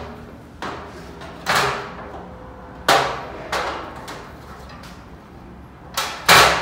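Sheet-steel gondola shelf being set onto its metal brackets and pushed in: a series of sharp metal knocks and clanks, loudest about three seconds in, ending with a quick double clack as the shelf clicks into place.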